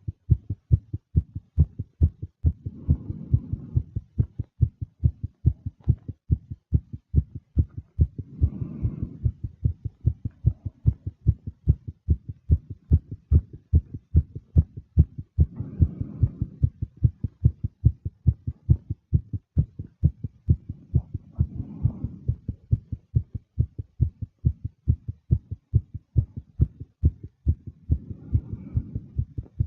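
A woman's fast heartbeat: rapid, even low thumps, a few a second, without a break. Five soft breaths swell in, about every six seconds.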